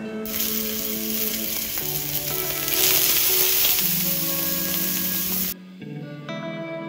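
Octopus tentacles sizzling in a hot ridged grill pan, a dense frying hiss over background music; the sizzle cuts off suddenly about five and a half seconds in, leaving only the music.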